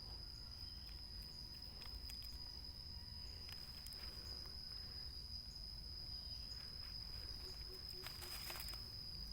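Steady, high-pitched insect drone in the forest, with scattered soft rustling and crackling of footsteps in leaf litter, a brief louder crackle near the end.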